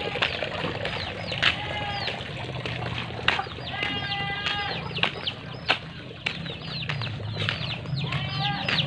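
Chickens calling: many quick, high, falling chirps, with a few longer calls.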